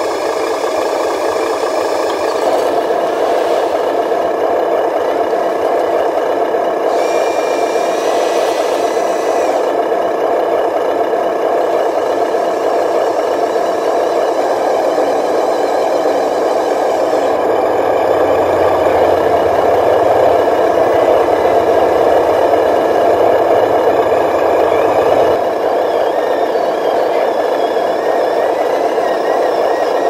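Remote-control dump truck running with a steady mechanical drone and rattle as its hydraulic ram tips the gravel-laden bed. A brighter, higher whine joins briefly after about seven seconds, and a lower hum comes in for several seconds past the middle.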